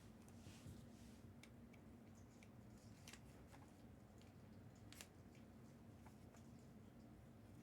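Near silence, with a few faint clicks and rustles of sports-card packaging being handled.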